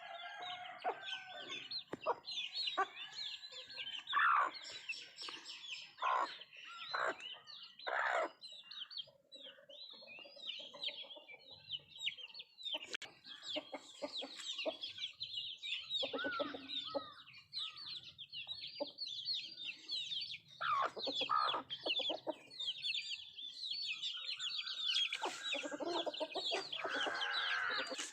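Country chickens (nattu kozhi) clucking at irregular intervals while feeding, over a constant stream of high-pitched chirping. A longer, fuller call comes near the end.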